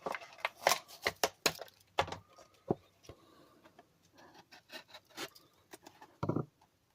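Real Avid pistol multitool being handled: a quick run of sharp clicks and light metal rattles, thinning out after about three seconds, with a short dull knock near the end.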